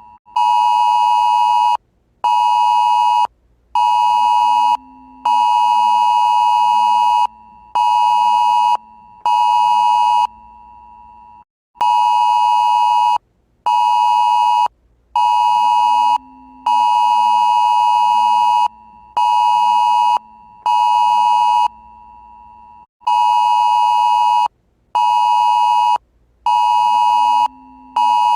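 Taiwan's national-level alert (國家級警報) earthquake warning tone: a loud electronic beep near 1 kHz sounding in a repeating pattern of one long beep and two short ones, given twice, then a brief pause before the cycle starts again, about every 11 seconds.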